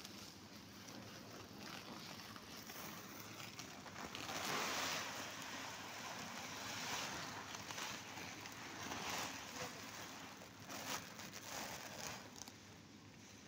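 Woven plastic sack rustling as it is handled and pulled. The rustle is loudest about four to five seconds in and swells again several times after.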